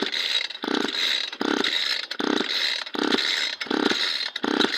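Hand tool scraping back and forth on metal in an even rhythm: about seven strokes, one roughly every three-quarters of a second, each a short rasping sound.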